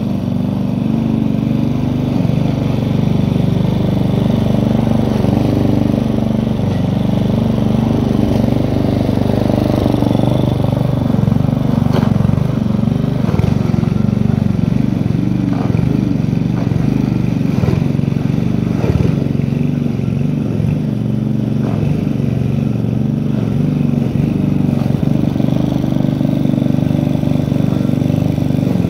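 Petrol walk-behind lawn mower engine running steadily while cutting long grass, with several sharp ticks in the middle.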